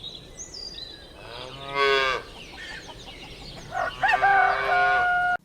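Cow mooing twice: a short call falling in pitch about two seconds in, then a longer, higher call that cuts off abruptly near the end.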